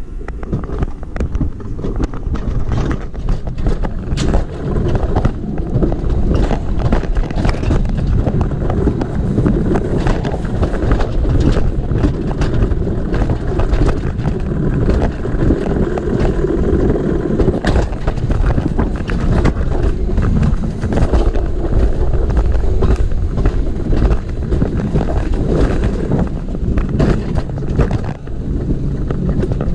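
Mountain coaster sled running at speed down its steel rails: a steady rolling rumble of the wheels, dotted with frequent sharp clicks and knocks from the track, with wind buffeting the microphone.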